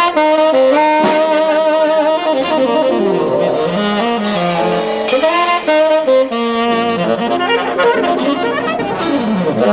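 Live jazz quartet playing, with a lead horn carrying a melody of held notes whose pitch wavers, over a moving lower line.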